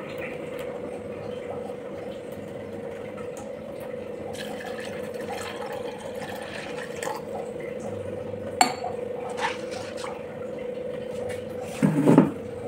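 Water poured in a stream into a terracotta pot of dried chickpeas, filling it to soak them, over a steady hum. A few knocks sound as the clay pot is handled, the loudest near the end.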